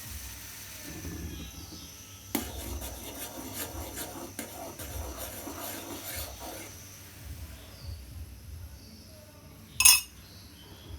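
Kitchen utensils on the milk tea pan: a few seconds of light scraping and small clicks, then one sharp ringing clink near the end.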